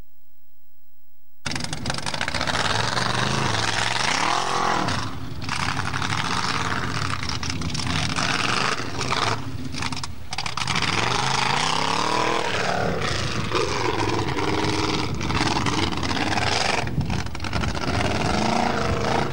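Off-road competition buggy's engine revving hard, its pitch rising and falling again and again as it drives up and across a gravel slope. The sound cuts in suddenly about a second and a half in, with a few brief dropouts.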